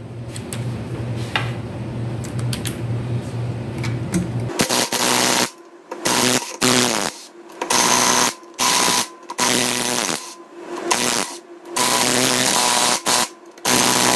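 Cordless DeWalt drill fitted with a socket, run in short trigger bursts to back out the engine's sump-cover bolts: about nine whirring runs, each under a second, start about four and a half seconds in. Before them, a steady low hum.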